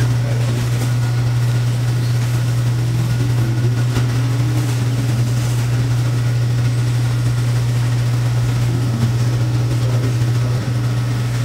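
A loud, steady low hum that does not change, with a faint murmur of voices underneath.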